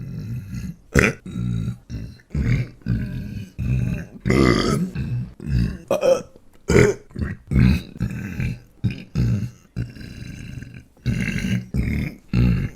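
A man belching over and over, one burp cut right after another: many short belches and a few longer, drawn-out ones, with a long one about four seconds in.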